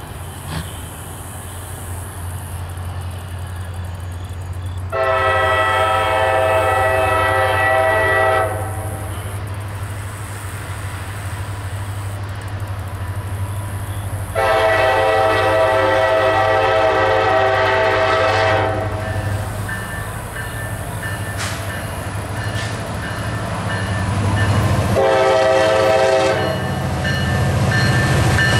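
The Nathan K5LA air horn on a CSX SD40-3 diesel locomotive sounds a multi-note chord in two long blasts and one short blast, the long-long-short of a grade-crossing signal. Under the horn runs the steady rumble of the locomotive's EMD two-stroke diesel, which grows louder as the train approaches.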